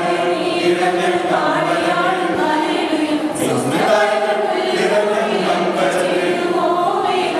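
Mixed choir of women's and men's voices singing in held notes, with a short pause for breath about three seconds in.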